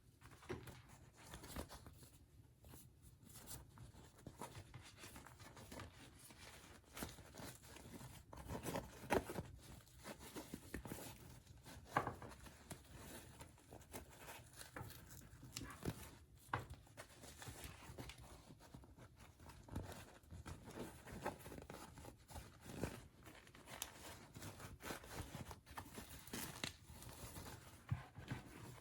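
Doll packaging being handled and torn open: scattered faint rustling, crinkling and tearing, with a few sharper clicks and snaps.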